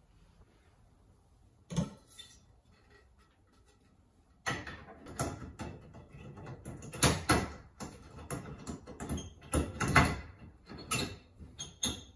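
Fluorescent tubes being fitted into a ceiling fixture's lamp sockets: one sharp click about two seconds in, then from about four and a half seconds a quick run of clicks, knocks and scraping of the tube ends against the sockets and metal fixture.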